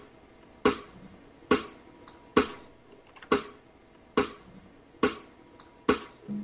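A slow, steady beat of single sharp drum hits, seven in all, one about every 0.9 seconds, each dying away quickly, over a faint steady hum.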